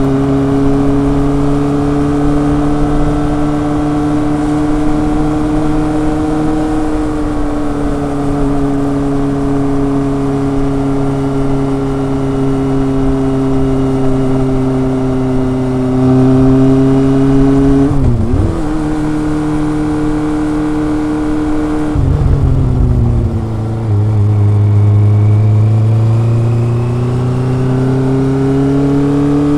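Kawasaki ZRX inline-four engine and exhaust under way, its note rising and falling gently with the throttle. About two-thirds in, the note drops sharply twice, a few seconds apart, then climbs steadily near the end.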